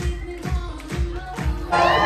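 Pop music with a steady deep beat, about two beats a second. Near the end it cuts abruptly to a different, louder song.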